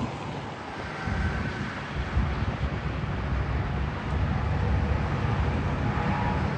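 Steady road and engine noise inside a moving vehicle, a low rumble with a hiss over it.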